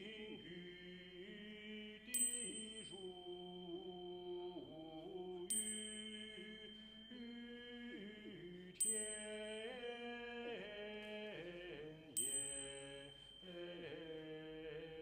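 A small mixed choir singing slow, sustained, chant-like notes that move in steps. A bright struck chime rings four times, about every three and a half seconds.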